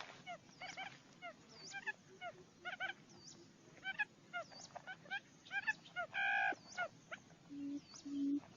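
Barred buttonquail lure call: a busy run of short, hooked chirping calls, then near the end a series of low hooting notes, about two a second, growing louder.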